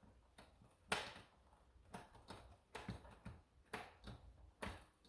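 Faint clicks and taps of hard plastic as the dart clips of a D-Dart Blizzard toy dart blaster are handled and tried, about eight at irregular spacing, the loudest about a second in.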